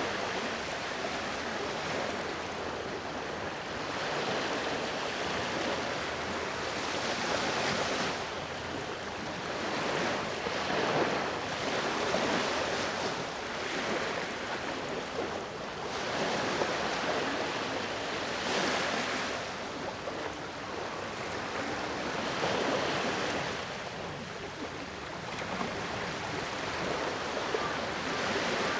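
Ocean waves breaking and washing on the shore, swelling and easing every few seconds, with some wind on the microphone.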